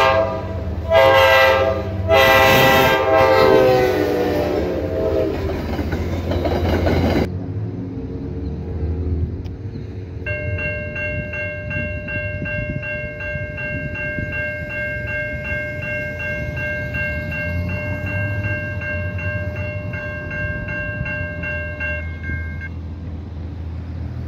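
NJ Transit commuter train horn sounding three blasts, the last a long one that drops in pitch as the train passes, followed by the train's rumble. After a cut, an electronic level-crossing bell rings steadily for about twelve seconds while the crossing gates come down, and stops once they are down.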